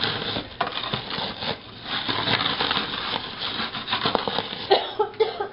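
Graham crackers being crushed under a can rolled back and forth on a wooden cutting board: rough crunching and crackling, with the can rubbing and scraping over the board.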